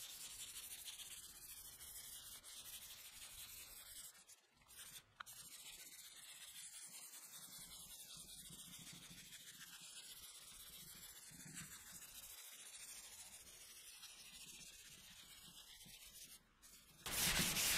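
Sandpaper on a hand sanding block rubbing back and forth over the polyurethane-primed tailgate of a Volkswagen Amarok. It makes a faint, steady scratching that drops out briefly a few times between strokes.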